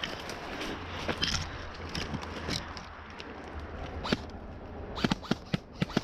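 Rustling and crackling of movement through brush, then from about five seconds in a quick string of sharp snaps from an airsoft gun being fired.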